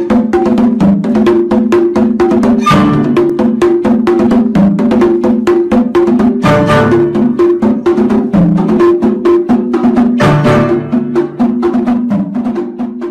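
Music: a fast tune of pitched notes over a busy, regular beat of sharp wood-block-like clicks.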